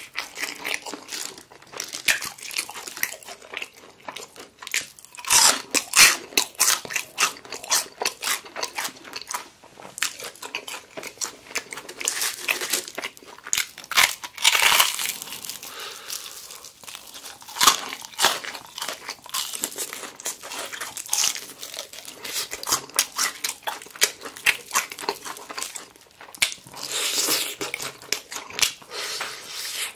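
Crunching and chewing of crispy fried chicken: crackling bites through the fried batter, meat tearing from the bone, and chewing, in a continuous run of short crisp crackles with louder clusters of bites.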